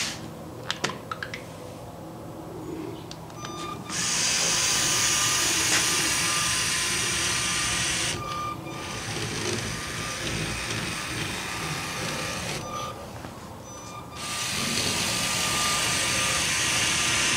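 LEGO Spike Prime delivery cart's motors and plastic gears running in three spells with short pauses between: driving straight, a slightly quieter spell while it turns, then driving straight again. A few light clicks come in the first second or so.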